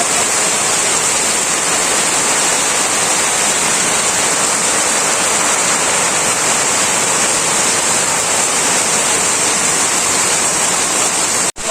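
Heavy rain pouring down steadily, a dense even hiss of a monsoon downpour. The sound cuts out for an instant near the end.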